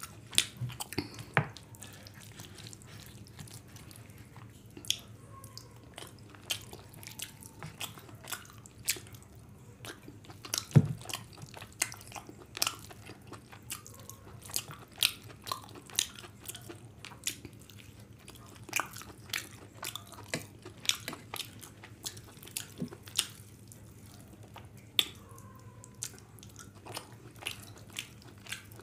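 Close-miked eating: chewing and wet lip-smacking mouth clicks, several a second, as rice and chicken curry are eaten by hand, with one louder knock about eleven seconds in, over a faint low hum.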